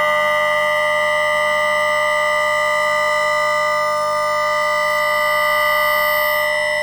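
Bombardier MITRAC IGBT VVVF traction inverter of a London Underground 2009 Tube Stock, picked up electromagnetically by a telephone pickup coil: a steady whine of several pure tones held level. One of the middle tones fades out near the end.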